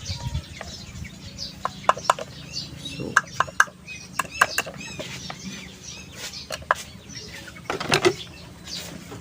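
Chickens clucking and small birds chirping in the background, with scattered light clicks and taps of handling.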